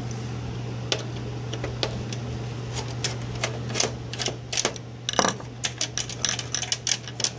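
Irregular metallic clicks and taps from a screwdriver working a screw out of a steel equipment panel. They come quicker in the second half, with one louder knock about five seconds in. A steady low hum runs underneath.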